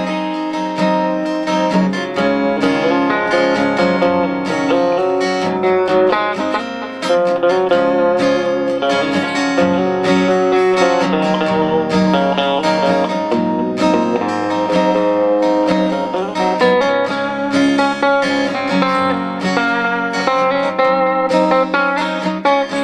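Instrumental guitar break in a slow country-folk song: strummed guitar chords under a melody line picked on guitar, with no singing.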